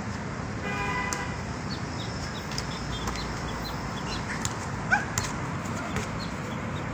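A basketball bouncing on an outdoor court, several sharp thuds with the loudest about five seconds in. A short steady-pitched call sounds about a second in, and faint short high squeaks come and go.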